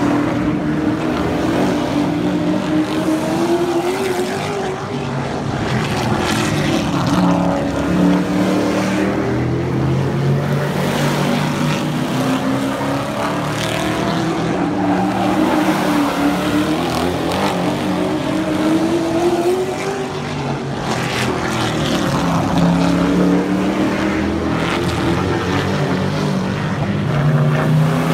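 Super truck race engines lapping a short oval track, the engine note rising and falling over and over as the trucks come through the turns and pass by.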